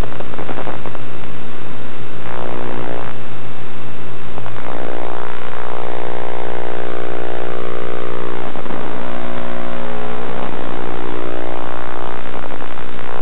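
Loud, steady buzzing drone on the onboard audio of a radio-controlled model airplane in flight, made of many steady tones. About four and a half seconds in the sound changes, and from then on tones sweep up and down in slow arcs.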